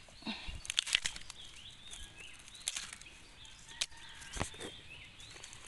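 Dry bamboo leaves rustling and a few crisp snaps as young bamboo shoots are broken off by hand, with faint bird chirps behind.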